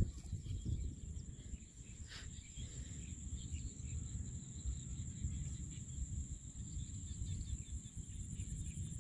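Insects trilling steadily at a high pitch over a constant low rumble.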